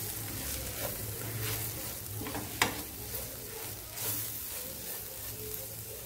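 Spatula stirring spice powders into shallots, garlic and tomato frying in oil in a nonstick pan: a steady sizzle with scraping strokes, and one sharper knock about two and a half seconds in.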